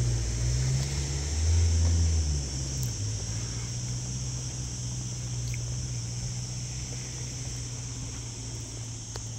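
Low hum of a motor vehicle's engine close by, changing pitch for the first couple of seconds and then running steadily, over a constant high chirring of insects.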